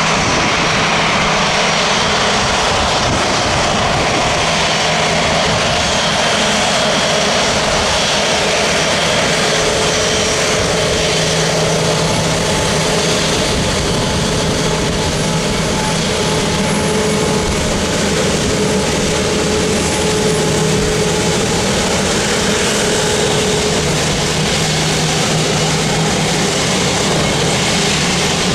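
Rolls-Royce Trent XWB turbofan engines of an Airbus A350-900 at taxi power: a loud, steady jet rush with a thin whine running through it.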